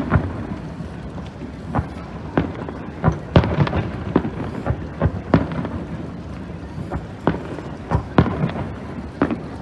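Fireworks display: aerial shells bursting in an irregular string of sharp bangs, a dozen or so, with a continuous low rumble between them.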